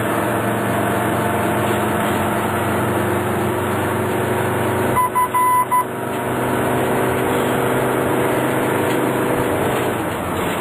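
Steady engine and road noise inside an ambulance cab while driving. About halfway through comes a quick run of four short high beeps.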